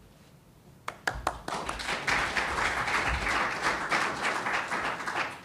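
Audience applauding: a few scattered claps about a second in, swelling into steady applause that dies away near the end.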